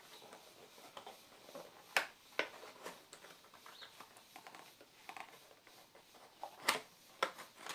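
Handling of a phone box and its accessories: scattered light clicks, taps and rustles, with a few sharper clicks about two seconds in and again near the end.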